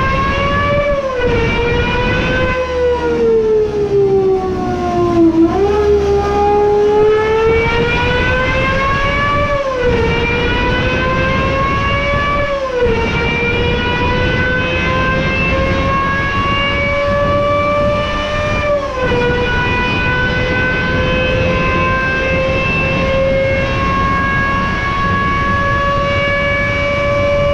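Naturally aspirated Cosworth GMA V12 engine of the Gordon Murray T.50, running on a dyno through a simulated lap at high revs. Its pitch dips to its lowest about five seconds in, then climbs again, with sharp drops at upshifts around ten, thirteen and nineteen seconds. After the last shift the revs climb slowly and steadily.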